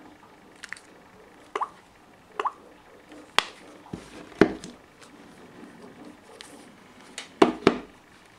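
Smartphones being handled and set down on a wooden desk: a string of sharp, irregularly spaced clicks and knocks, the loudest a little past the middle and near the end.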